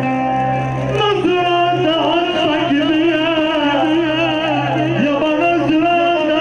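Arabic wedding music: a held chord for about a second, then a singer's ornamented, wavering vocal line over a steady low drone.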